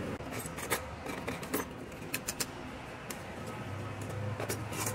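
Short clicks and clinks of small metal and plastic scrap parts being handled and dropped into a plastic tub, coming in irregular clusters.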